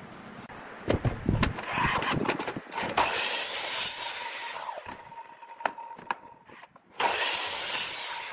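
Woodworking sounds: several sharp knocks on wood, then stretches of rough, hissing noise over a faint steady whine.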